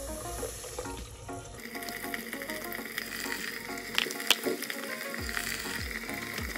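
Breaded triggerfish throats frying in a pot of hot oil, the oil sizzling and bubbling steadily, with a couple of sharp pops about four seconds in.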